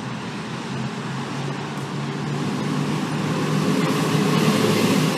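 A D-class Siemens Combino tram passing close by amid road traffic, the sound building to its loudest near the end, with a steady low hum under the rolling noise.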